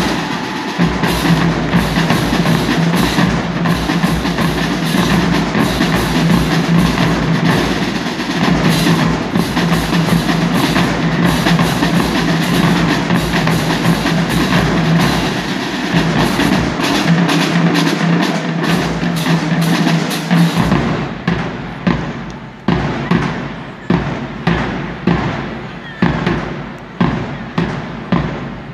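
Marching drumline playing fast, dense drumming over a steady held low note. About two-thirds of the way through it breaks into separate, evenly spaced loud drum hits, roughly one a second, each ringing out in the arena.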